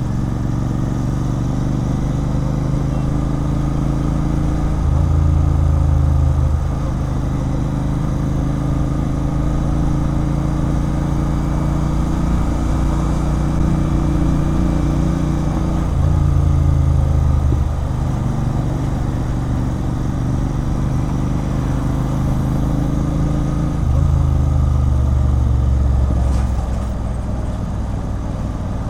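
Royal Enfield Continental GT 650's 648 cc parallel-twin engine running through a loud aftermarket Red Rooster Performance exhaust while riding. The note holds steady, getting louder for a second or two about 5, 16 and 24 seconds in.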